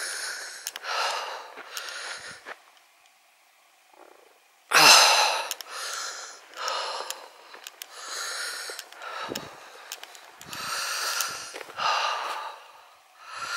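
A hiker's heavy, rough breathing close to the microphone while walking, one breath about every second, with a few dull low thumps. About three seconds in, the sound cuts out completely for about two seconds, then comes back loudly.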